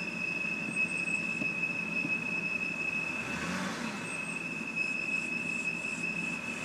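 2007 BMW 328i's inline-six idling with a steady high-pitched whistle like a teapot, a sound put down to a vacuum leak and, tentatively, to the crankcase vent valve. About three seconds in the idle surges up on its own and the whistle drops out for a moment before returning.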